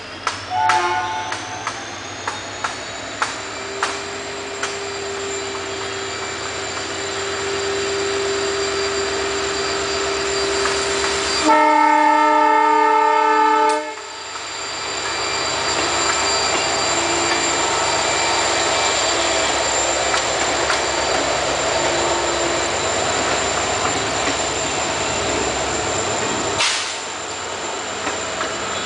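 EMD WDP-4 (GT46PAC) diesel-electric locomotive approaching with a steady engine whine that builds. Just before it passes it sounds its horn once, loudly, for about two seconds. The passenger coaches then run close by with steady wheel-on-rail rumble and clatter.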